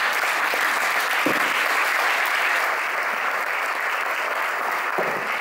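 Audience in a lecture hall applauding steadily.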